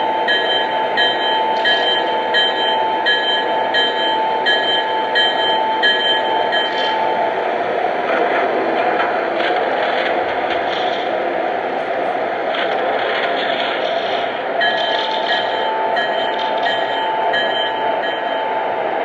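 Lionel Vision Line GG1 O-gauge model electric locomotive running, its onboard sound system playing steady electric-locomotive running sounds. A bell rings about twice a second for the first seven seconds and again near the end.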